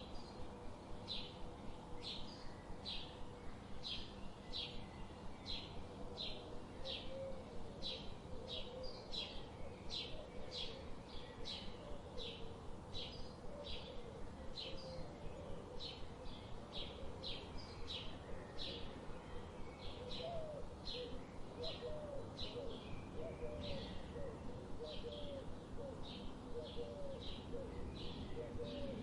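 Songbirds: one bird repeats a short high note about twice a second, and lower wavering calls join in after several seconds, over a steady background hiss.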